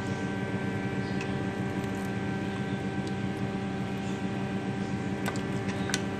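A steady machine hum with several fixed tones, with a few light metal clinks of a ladle near the end as chickpea curry is ladled into a bowl.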